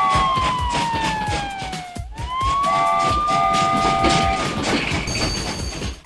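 Police siren wailing: a single tone slides slowly down in pitch, sweeps back up and holds. A chord-like horn sounds in short blasts alongside it, and a brief high two-note tone comes near the end.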